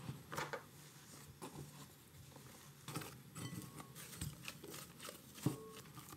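Hands kneading soft bun dough in a glass mixing bowl: faint, irregular squishing and patting, with one sharper knock a little past five seconds in.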